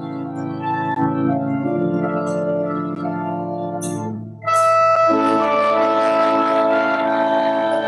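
Church organ playing slow, sustained chords. Just after four seconds in it breaks off briefly, then comes back louder with a fuller, brighter chord.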